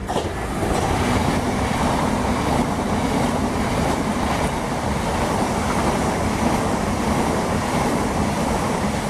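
Southeastern Class 395 'Javelin' high-speed electric multiple unit running past along the platform: a steady noise of wheels on the rails with a low hum underneath.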